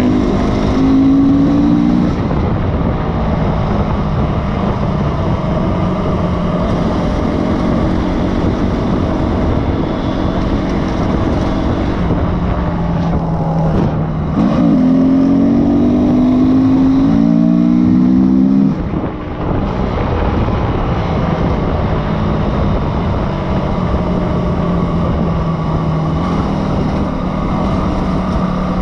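Honda CRF250X's single-cylinder four-stroke engine running under way, heard from on the bike with wind rush. The revs pick up briefly about a second in and again for about four seconds around the middle, then ease back.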